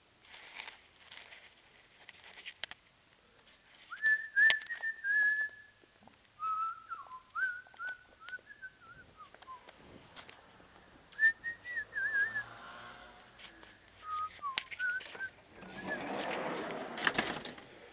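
A person whistling a tune in several short phrases, over scattered clicks and taps of handling work. Near the end there is a louder burst of rough noise.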